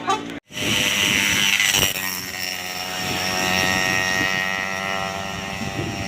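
A large bus's diesel engine running close by, a steady drone with a hiss of air during its first second or so. It comes straight after the tail of a multi-note telolet horn melody, which is cut off in the first half second.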